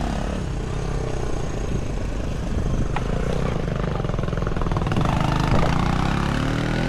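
Small step-through motorbike engines running as the bikes ride past. About five seconds in, one revs up and its pitch rises.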